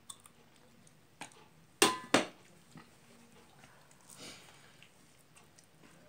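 Stainless steel bowl clanging twice in quick succession as it is set down, about two seconds in, with a short ring; later a soft rustle of rice being mixed by hand.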